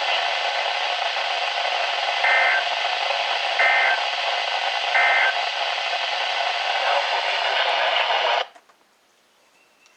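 Weather radio receiver hissing with static, with three short warbling data bursts about a second and a third apart: the end-of-message tones of an emergency alert broadcast. The static cuts off abruptly about eight and a half seconds in, as the receiver goes quiet.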